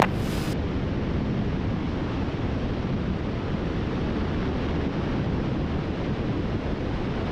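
Steady drone inside the cabin of a single-engine Cessna in level flight: engine, propeller and rushing air.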